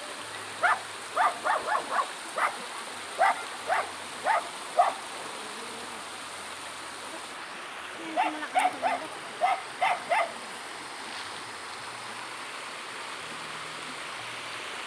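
Steady rush of flowing river water, with two quick runs of short, sharp sounds: about nine in the first five seconds and about eight more around eight to ten seconds in.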